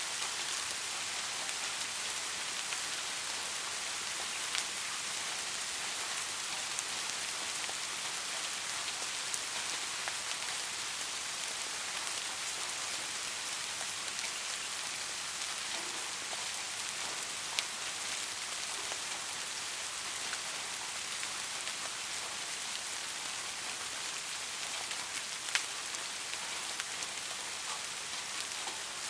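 Steady rain falling on a surface, an even hiss with a few louder single drops now and then.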